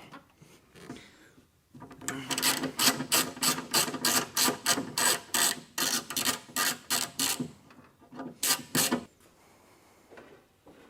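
Hand socket ratchet clicking in quick back-and-forth strokes, about four a second for some five seconds, then two more strokes near the end, as it turns nuts in a car door.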